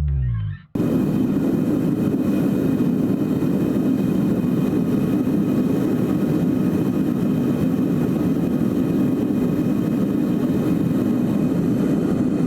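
Background music fades out within the first second, then a loud, steady mechanical roar runs on without change.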